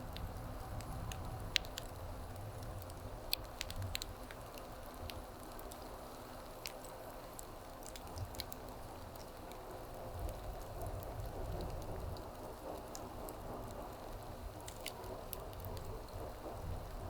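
Wood fire crackling, with a steady rush of flame under it and scattered sharp pops and snaps at irregular intervals, most of them in the first few seconds and again near the end.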